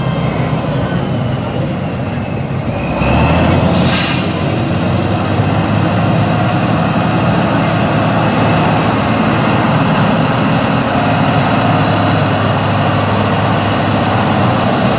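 Tatra 815 8x8 trial truck's diesel engine working hard under load as the truck crawls through deep mud; the engine gets louder about three seconds in and stays loud.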